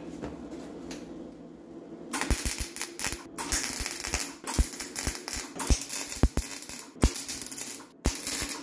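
MIG welder arc crackling and spitting as a steel body patch is welded into a car's lower rear quarter panel. It starts about two seconds in, after a quieter hum, and comes in runs with a few short breaks. The welder's setting has just been turned up because it was running too slowly.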